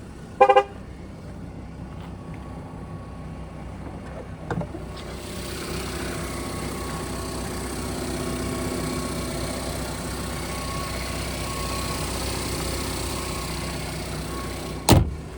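2014 Cadillac ATS: a short electronic chime about half a second in and a click a few seconds later. Then a steady running hum with a fan-like hiss builds up and holds, and a loud thump comes near the end.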